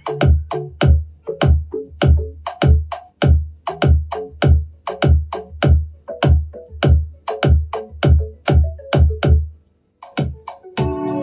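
Electronic dance music with a heavy, bass-laden drum-machine beat played through a portable Bluetooth speaker in a sound test. The beat stops a little under ten seconds in, and after a brief gap a different track with sustained organ-like keyboard chords starts near the end.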